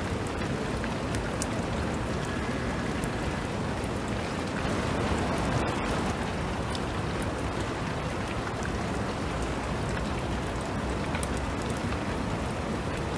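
Steady rain falling, with scattered faint drop ticks.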